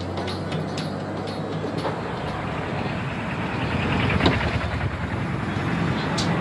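Road traffic noise: vehicle engines running and passing in a steady wash of sound, with a short sharp click near the end.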